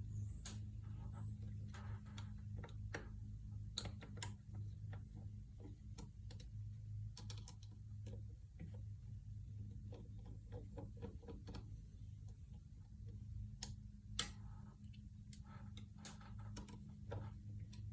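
Irregular light clicks and taps, scattered unevenly, over a steady low hum.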